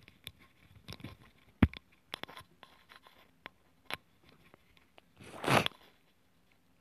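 Scattered small clicks and taps, with one sharp click about a second and a half in, and a short scraping rustle about five seconds in, the loudest sound.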